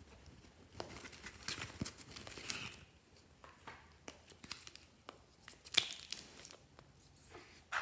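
Slime being worked by hand, with sticky crackling and sharp popping clicks. It is busiest in the first few seconds, and one louder pop comes near six seconds in.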